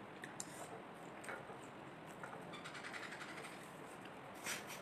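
Faint chewing and mouth-on-plate clicks from people eating face-down off plates with no hands, with a few scattered sharp clicks and one slightly louder one near the end.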